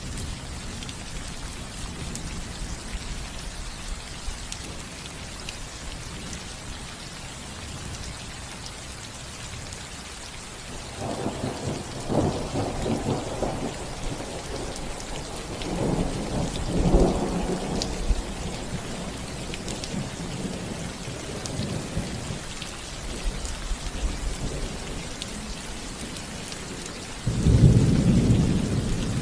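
Steady rain falling on a house roof, with thunder rolling in twice about halfway through and a louder, sudden clap of thunder near the end.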